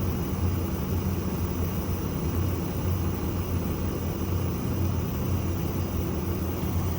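Steady low mechanical hum of the Kobelco 210 excavator's machinery running, even and unchanging throughout.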